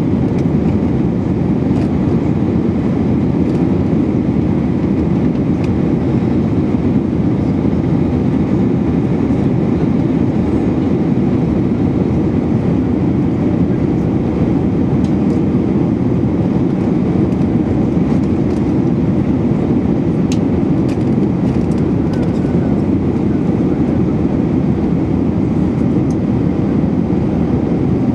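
Steady cabin roar of an Airbus A319-111 in flight: its CFM56-5B turbofan engines and the rush of air past the fuselage, heard from a window seat beside the wing. A few faint clicks come about three-quarters of the way through.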